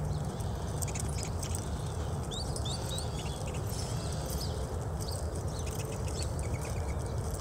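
Horse trotting on soft arena dirt, its hoofbeats under a steady low rumble. Small birds chirp in short high notes now and then, most in the middle and near the end.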